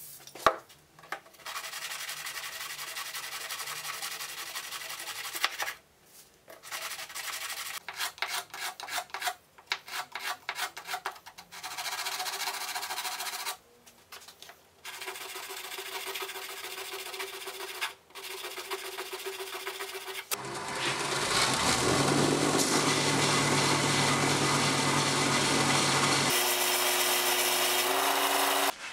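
A wooden block rubbed by hand on sandpaper laid flat on a board, in long stretches and bursts of short strokes with pauses between. About twenty seconds in, a bench belt sander starts up and runs steadily with a motor hum, and its pitch shifts a little near the end.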